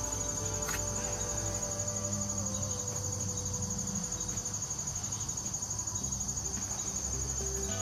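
Steady high-pitched trill of insects, unbroken and even.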